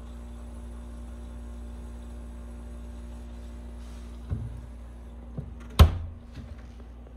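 A steady low electrical hum with a fixed tone, then three knocks in the last few seconds, the third the loudest, with a short low boom after it.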